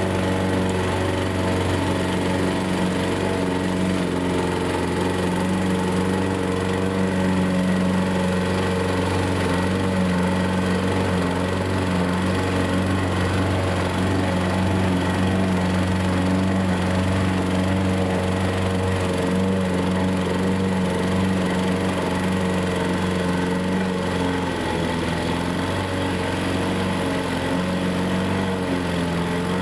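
Radio-controlled lawn mower's engine running steadily while mowing grass, its pitch wavering slightly a few seconds before the end.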